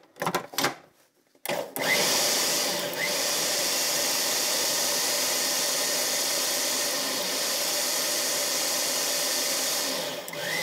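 A few short clicks as the food processor is set up, then about a second and a half in its motor starts and runs steadily, chopping avocado and the other ingredients into guacamole.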